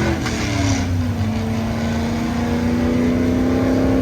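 Aerial ladder truck's engine running at raised revs, its pitch dropping about a second in and then holding steady.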